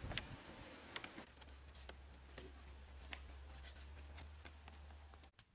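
Faint scattered clicks and rustles of cord being pulled and knotted around wooden poles, with a low steady rumble from about a second in that cuts off suddenly near the end.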